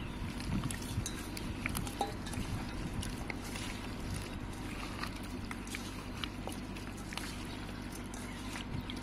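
Raw chicken pieces being mixed by hand with sauces and aromatics in a metal bowl: soft wet squelching with scattered small clicks, over a steady low hum.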